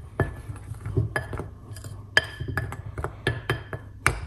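A utensil stirring dry cake ingredients (flour, spices, baking powder) in a bowl, hitting the bowl's side in an irregular run of short, ringing clinks.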